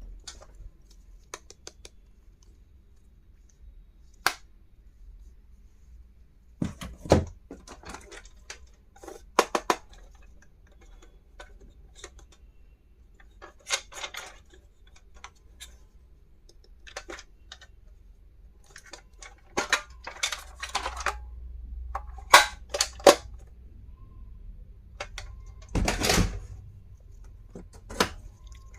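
Plastic stationery and toys being handled and unpacked by hand: scattered sharp clicks, taps and small clatters with quiet gaps between them. The louder knocks come about seven seconds in and around twenty-two seconds, and a longer clatter about twenty-six seconds in.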